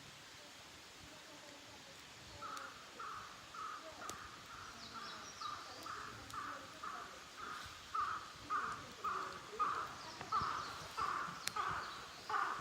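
A bird calling in a long run of short, repeated notes, about two or three a second. The calls start about two seconds in and grow louder toward the end. Fainter chirps from other birds sound behind it.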